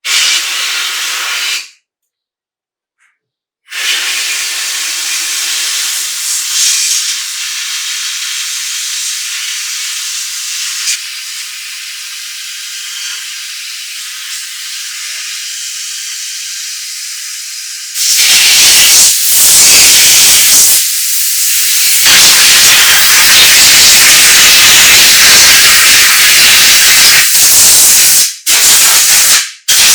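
Loud steady hissing spray, in several stretches with sudden cuts between them. It becomes louder and fuller a little past halfway.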